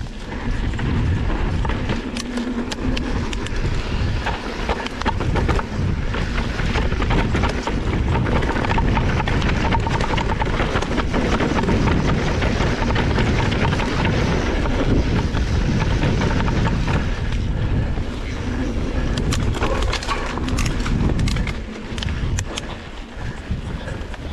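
Mountain bike riding fast down a dirt singletrack: wind rush on the microphone with the bike clattering and rattling over the rough trail, the noise easing briefly near the end.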